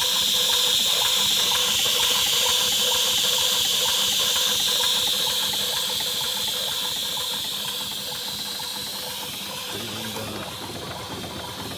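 Pop safety valve on a 3-inch-scale Fowler R3 live-steam traction engine blowing off steam, a loud steady hiss that slowly dies away over the last few seconds. It is the sign that the boiler has reached its blow-off pressure, about 100 psi.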